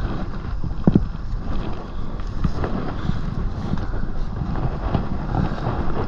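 Wind rumbling on a body-worn microphone high in a tree, with light knocks and rustles from the climber's gear and ropes, one knock about a second in.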